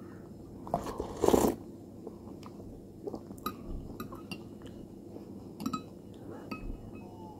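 Metal spoon clinking against a glass bowl of cornflakes and milk, several light clinks, each with a short ring. About a second in, a loud mouth noise as a spoonful is eaten.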